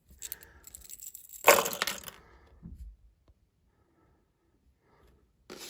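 Crackling handling noise from Lego pieces being picked up and set down, loudest about a second and a half in, with a few faint ticks after.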